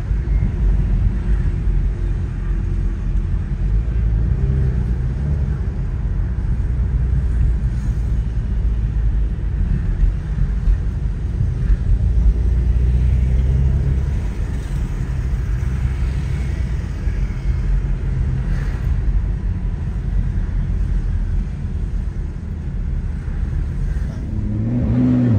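Steady low rumble of a car driving, heard from inside the cabin: engine and road noise, with the engine's tone rising and falling now and then.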